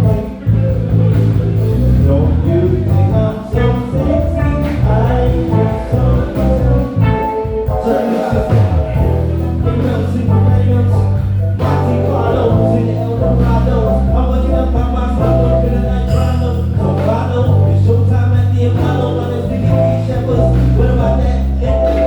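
Live band playing a soul-style groove: electric bass holding long low notes under drums and keyboard, with a melody line on top.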